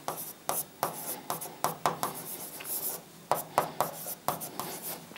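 Stylus tapping and scratching on the glass of an interactive display during handwriting: an irregular run of short ticks and strokes, with a brief pause about three seconds in.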